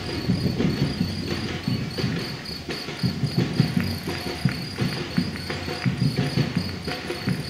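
Many runners' footsteps slapping on a paved path, an uneven patter of low thuds. Over it a steady high chirping pulses about four times a second.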